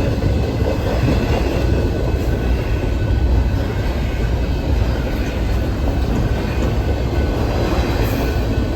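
Norfolk Southern train rolling past steadily, a continuous low rumble of wheels and cars on the rails.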